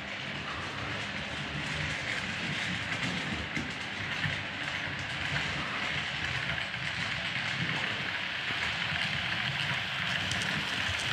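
H0-scale Piko SU45 model diesel locomotive and its coaches running on the layout track: a steady whirring, rushing noise of the small electric motor and wheels rolling on the rails, growing slightly louder near the end as the train comes closer.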